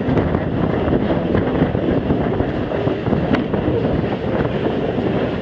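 Passenger railroad coach rolling along the track: a steady rumble of wheels on rail with a few sharp clicks, mixed with wind on the microphone.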